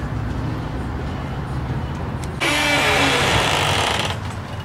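An engine running steadily, with a loud hiss that starts suddenly about two and a half seconds in and cuts off nearly two seconds later.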